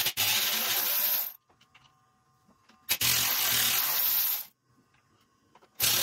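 Cordless electric ratchet whirring as it backs out the 8 mm throttle-body bolts. It runs three times, each run about a second and a half, with short pauses between; the third run starts near the end.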